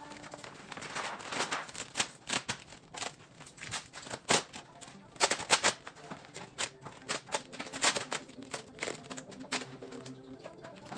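A large sheet of vinyl wrap film crackling and crinkling in irregular sharp snaps as it is lifted, stretched and laid onto a car body panel, with a squeegee rubbing over it near the end.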